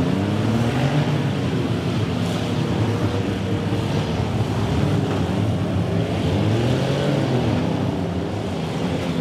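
Several demolition derby cars' engines running and revving together, their pitches rising and falling and overlapping as the cars drive at each other in the arena.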